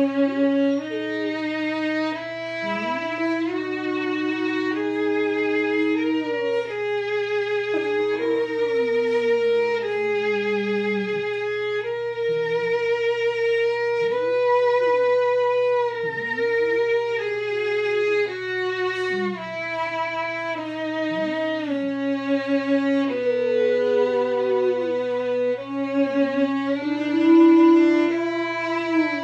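Violin playing a slow melody of held notes with vibrato. Near the end an Alaskan malamute howls along with it.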